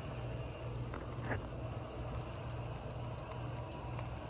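Egg rolls shallow-frying in a pan of hot oil, with a steady sizzle and bubbling.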